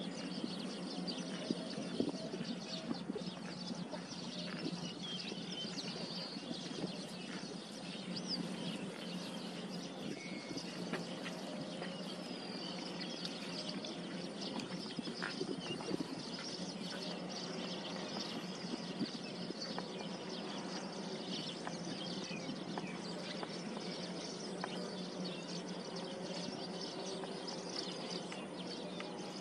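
Outdoor ambience: small birds chirping on and off over a steady low hum.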